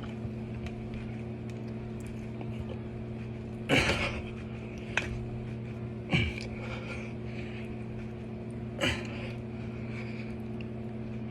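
A man's hard, effortful exhales or grunts during push-ups: four short bursts, a second or more apart, over a steady low hum.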